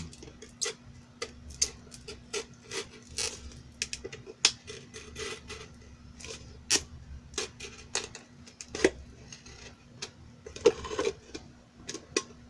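A small blade cutting freehand around a thin clear plastic bottle, the plastic giving irregular sharp clicks and crackles as it is sliced.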